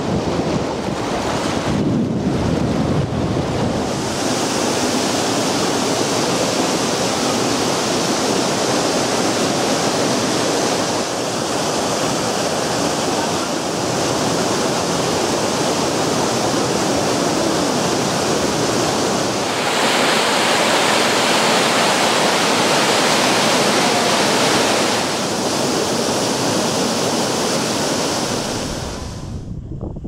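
Steady loud rush of surf and moving water with wind on the microphone. The noise shifts in tone a few times and drops away just before the end.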